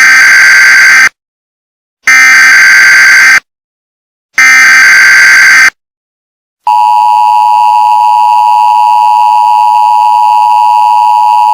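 Emergency Alert System tones. Three buzzy SAME header data bursts of about a second each, roughly a second apart, are followed by the steady two-tone EAS attention signal, which starts about seven seconds in and holds.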